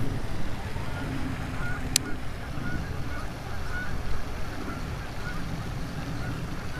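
Geese honking in a short repeated series, over a steady low rumble of wind on the microphone. A single sharp click comes about two seconds in.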